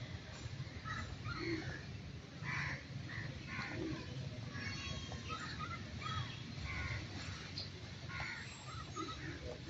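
Short, harsh animal calls repeated irregularly, about one every half second to second, over a steady low rumble.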